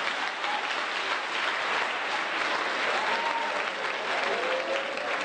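Theatre audience applauding: steady, dense clapping.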